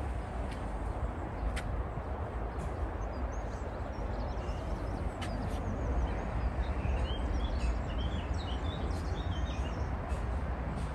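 Outdoor background: a steady low rumble throughout, with small birds chirping from about halfway through, and a few faint ticks early on.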